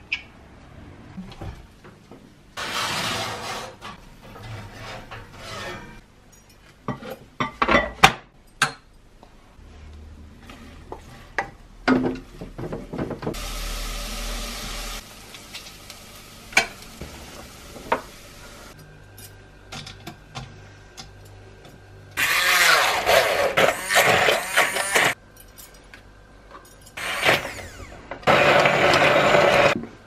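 Kitchen cooking sounds: roasted cauliflower is handled into a Moulinex Cookeo pot, with clatter and a few sharp knocks. Near the end a hand-held immersion blender runs in two bursts of about three and two seconds, puréeing the soup.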